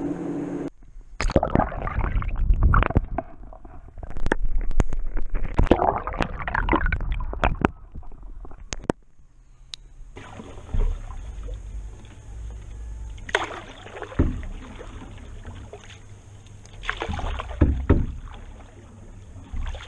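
Canoe paddling on calm lake water: a paddle dipping and pulling through the water with splashing and dripping, and sharp knocks and clicks, busiest in the first half. Later the strokes come as separate swells every second or few.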